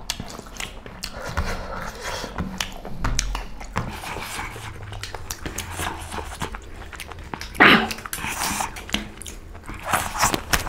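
Close-up eating sounds of people eating beef curry and rice by hand: chewing, wet mouth noises and fingers squishing and mixing food on the plates, with many small clicks. A brief louder vocal sound about eight seconds in.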